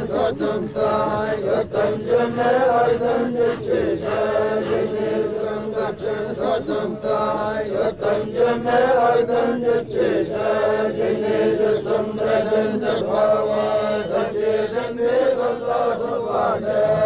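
Mongolian Buddhist lamas chanting prayers together in a steady, continuous group recitation of men's voices.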